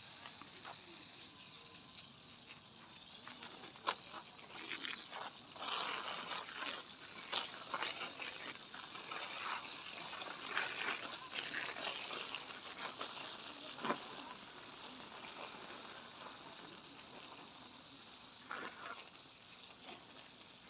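Water splashing and pattering onto marigold plants and soil during watering, in irregular bursts that are strongest in the middle and ease off toward the end.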